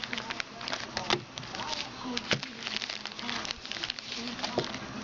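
Foil-wrapped trading card packs and their cardboard box being handled: a quick, irregular run of small crinkles and clicks.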